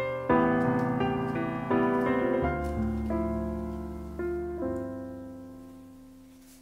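Gentle solo piano background music, chords struck one after another, the last one ringing and dying away near the end.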